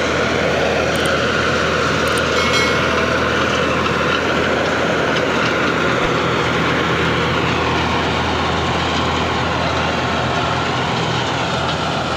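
Tractor-driven threshing machine running steadily as dried canola (mustard) stalks are fed into it for threshing: a loud, continuous mechanical drone with the tractor's engine running under it.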